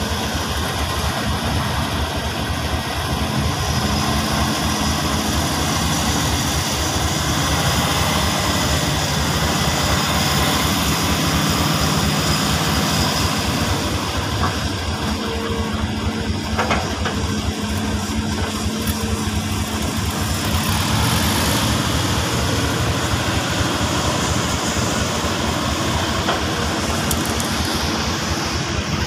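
Heavy diesel engine of a loaded logging truck running steadily at low revs as the truck creeps down a steep dirt slope.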